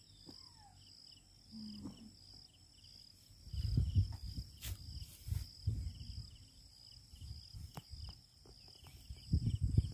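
Insects chirping steadily outdoors: a high continuous drone with a pulsing chirp repeating about three times a second. Two stretches of low rumble, about three and a half seconds in and again near the end, are louder than the insects.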